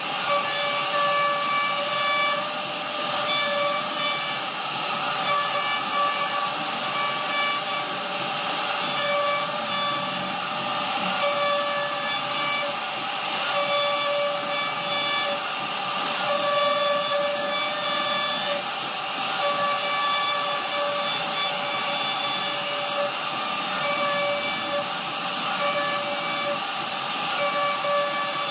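CNC router spindle with a carving bit cutting a relief into a wooden board: a steady machine whine made of several high tones that swell and fade as the bit works, over the hiss of wood being cut.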